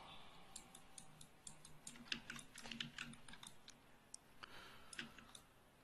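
Faint, irregular clicks and taps of a computer keyboard and mouse, scattered through an otherwise quiet room.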